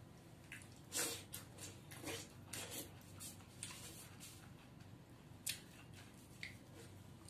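Close-up wet mouth sounds of someone chewing and sucking cooked drumstick (moringa) pods: a run of short, wet smacks and slurps. The loudest is about a second in, a few more follow over the next few seconds, and one sharp smack comes near the middle.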